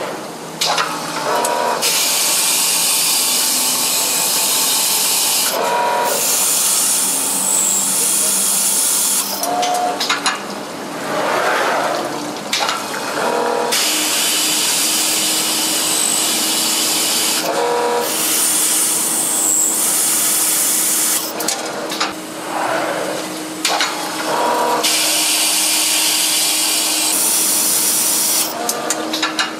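Automatic CNC glass drilling machine working through its cycle: a steady hiss that comes and goes in stretches of a few seconds, with shorter rising and falling machine sounds between them, as the water-cooled core drill bit cuts holes in the glass.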